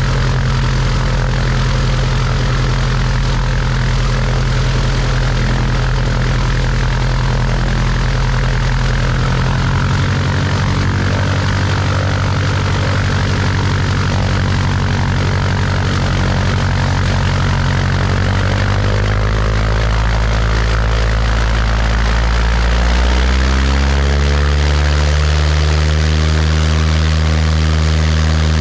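Cessna 172's piston engine and propeller running at low taxi power on a grass strip. The engine speed steps up about a third of the way in, again about two-thirds in, then climbs steadily for a few seconds and holds at the higher speed.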